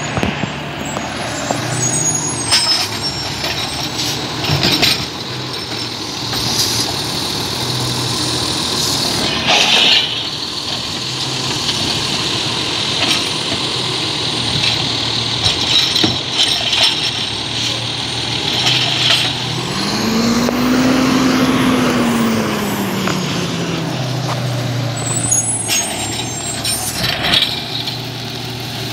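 Diesel engine of an automated side-loader garbage truck idling, with clanks and clatter as its mechanical arm grabs, lifts and sets down plastic garbage carts, and a hiss of air brakes. About two-thirds of the way through, the engine revs up and back down once as it drives the hydraulic lift arm.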